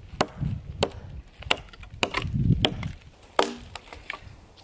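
A blade chopping into a dead tree trunk: about eight sharp, separate strikes at an uneven pace, a few with a brief ring. The log is being cut at its score mark to length for an A-frame shelter's main support beam.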